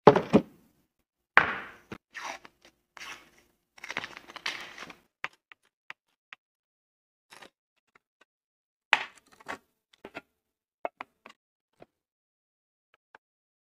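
Kitchen utensils and containers being handled during food prep: knocks and scraping in the first few seconds, loudest at the very start and about a second and a half in, then scattered light taps and clinks.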